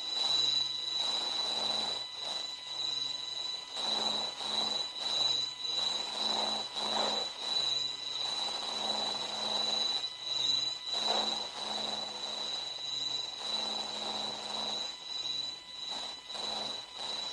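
Sonified 'sound of the Sun': an eerie, rumbling space drone that swells and fades roughly once a second, over a steady high whine.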